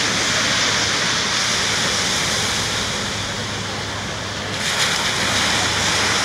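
Small waves breaking and washing up a sandy beach, a steady hiss of surf that eases about four seconds in and swells again just after.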